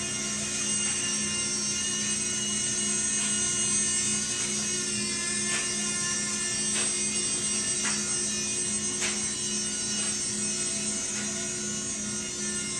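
Blade MSR micro RC helicopter in flight: the steady high-pitched whine of its small electric motors and spinning rotor, with a few faint clicks.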